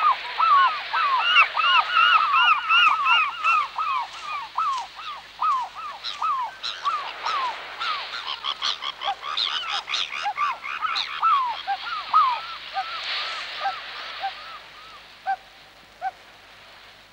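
Waterfowl calling: a fast, overlapping series of short honking calls, several a second, that thin out and fade away over the last few seconds.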